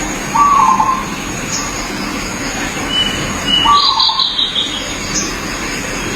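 Zebra dove (perkutut) cooing: two short staccato phrases, about three seconds apart. Other small birds chirp higher in pitch around the middle, over a steady high-pitched hum.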